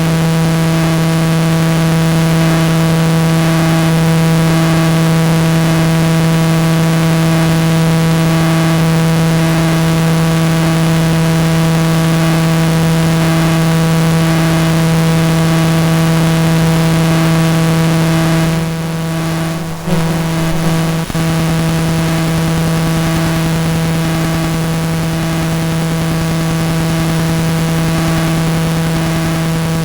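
Steady electrical buzz, a loud hum of evenly spaced tones over hiss, briefly dropping out and crackling about two-thirds of the way through.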